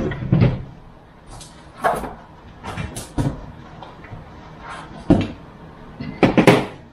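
Parts of an Anet ET4X 3D printer kit and its foam packaging being handled on a worktable: scattered knocks, rubs and scrapes, about a second apart, with the loudest cluster near the end.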